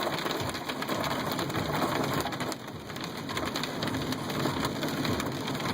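Rain mixed with hail pelting a car's roof and windshield, heard from inside the cabin: a dense, continuous patter of small hits that eases slightly about two and a half seconds in.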